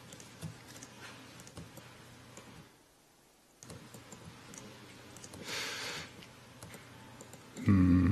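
Faint, scattered clicks and taps of a laptop keyboard and trackpad being operated. There is a short hiss-like burst a little past the middle and a brief voice sound near the end.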